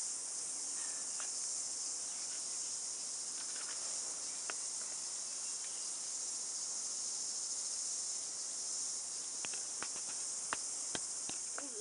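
Steady high-pitched chirring of an insect chorus, with a few faint clicks and taps near the end.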